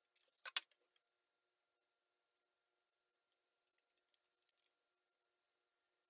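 Faint handling sounds of a triple-barrel hair waver clamping a section of hair: a short clack about half a second in, then a few soft scrapes and rustles around four seconds in.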